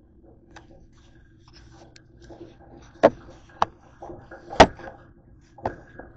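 Handling knocks and clicks as a camera is moved and set down on a hard kitchen countertop: four sharp knocks in the second half, the third the loudest, over a steady low hum.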